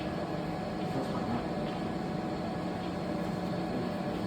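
3D crystal laser inner-engraving machine running: a steady hum with faint, constant high whines.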